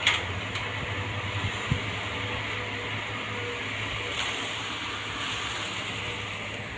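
Excavator's diesel engine running steadily, with a sharp clank at the start and a short thump just under two seconds in.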